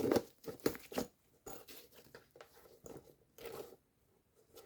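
Handling noises from an inline skate being turned and worked with the hands: scattered rustles, light clicks and scrapes, busiest in the first second, then a few more softer ones.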